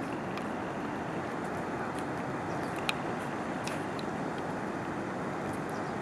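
Steady outdoor ambient rush, even and unbroken, with a few faint sharp clicks, the clearest about three seconds in.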